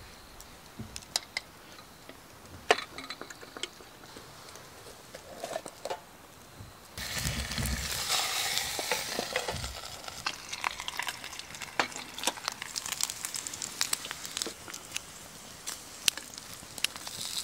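Pork belly slices laid with metal tongs into a folding grill pan, a few light clicks, then a sudden loud sizzle about seven seconds in as the meat hits the heat over the wood fire. The sizzle eases into a steadier frying with frequent crackles.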